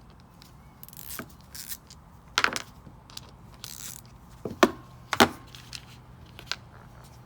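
Tools and small carburettor parts being handled on a workbench: scattered clicks and light clatter, a few brief scrapes, and two sharp knocks about two-thirds of the way through.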